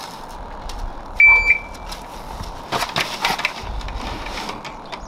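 A shot timer's electronic buzzer gives one short, high beep about a second in, starting the drill. Then, around the middle, come clattering and shuffling sounds of the shooter dropping to one knee and settling his rifle onto the rest.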